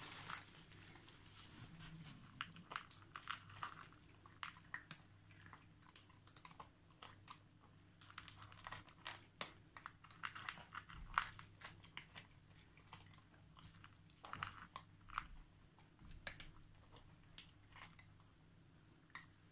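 Cats chewing dry kibble from plastic bowls: faint, irregular crunches and clicks.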